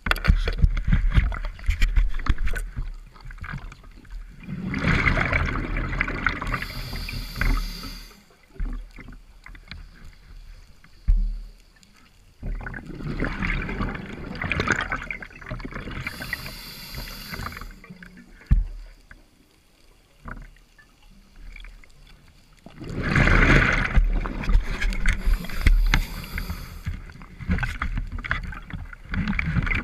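Scuba diver breathing through a regulator underwater: three rushes of exhaled bubbles about ten seconds apart, each followed by a short higher hiss, over a steady low rumble.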